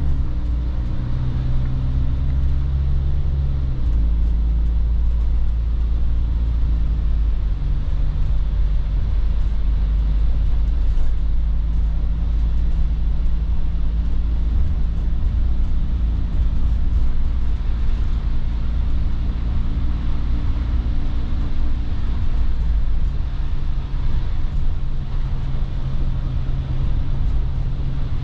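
2.0-litre Ford diesel engine of a camper van heard from inside the cab while driving, running steadily under way with tyre and road noise. The engine's pitch shifts a couple of times.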